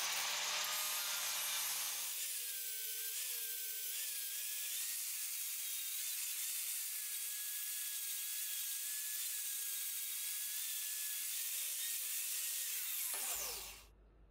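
MIG welding crackle for about the first two seconds, then an angle grinder grinding down steel welds, running steadily with small dips in pitch as it bites. Near the end the grinder is switched off and winds down with a falling whine.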